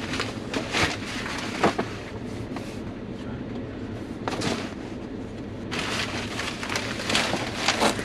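Rustling and handling noises with scattered sharp knocks and clicks, as gear is moved about, growing busier in the last couple of seconds.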